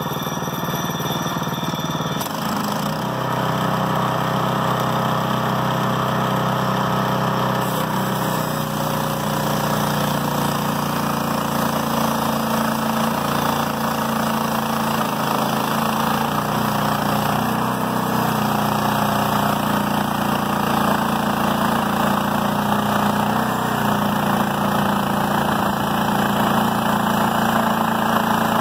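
Hudson Sawyer & Hunter portable band sawmill running under load, its gas engine driving the band blade through a white oak log. The sawing hiss over the steady engine tone thickens about two seconds in.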